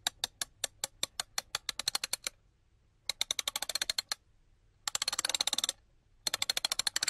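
A series of sharp clicks, spaced at first and quickening, then breaking into three fast rattling runs with short pauses between them.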